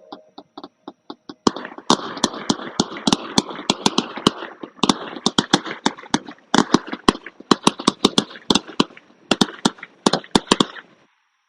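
Fireworks going off in a rapid volley of sharp bangs and crackles. A few light pops come first, then a dense run of bangs that stops abruptly near the end.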